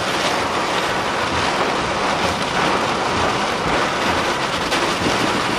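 Heavy, wind-driven rain hitting a moving car's windshield and body in a downburst's straight-line winds, heard from inside the car as a steady, dense rush.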